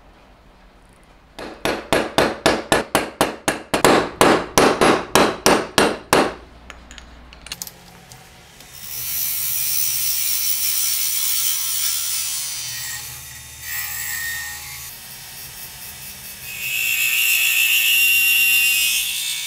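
About twenty quick, even taps, around four a second, in the first few seconds. Then a spinning ebony handle blank on a wood lathe being cut by a steel turning tool, a steady scraping hiss. Near the end a twist drill bores into the spinning ebony, louder, with a high whine.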